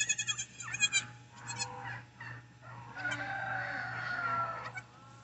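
Short bleats from a Nigerian Dwarf goat doe and her newborn kids in the first second or so, then a longer drawn-out call with a slowly falling pitch about three seconds in.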